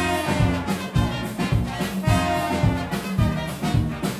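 Background music with brass over a steady beat, about two beats a second.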